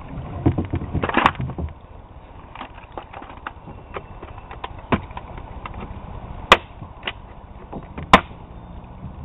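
Scattered knocks and clicks on a kayak, with quiet water between them; two loud, sharp knocks come about six and a half and eight seconds in.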